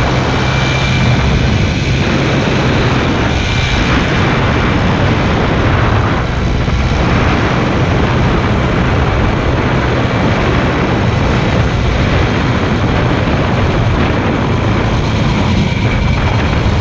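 Motorcycle running at a steady speed, its engine a low, even drone under loud rushing wind noise.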